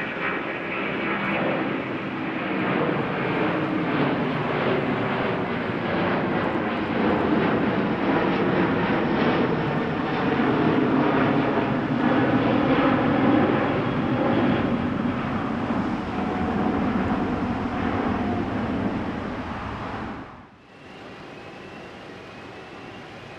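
Airbus A330 jet airliner's engines running loud as it passes close, the noise building to a peak about halfway through with a layered hum of engine tones. About twenty seconds in it cuts off suddenly to a much quieter, steady background noise.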